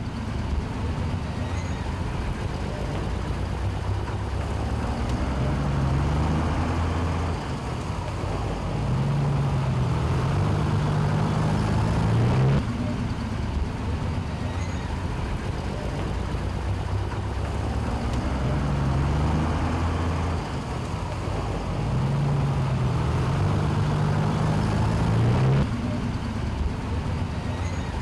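Road traffic with heavy diesel engines running. Twice, a deep engine note climbs in steps for several seconds and then stops abruptly.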